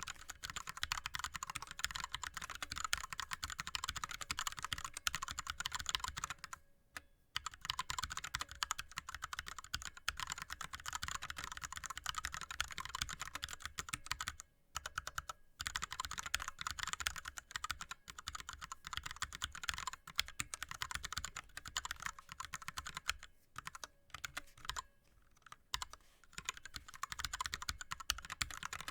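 Fast touch typing on an ErgoDox split keyboard with Cherry MX Red linear switches and blank DSA keycaps: a dense, continuous clatter of keystrokes, broken by brief pauses about seven seconds in, twice around fifteen seconds, and again around twenty-four seconds.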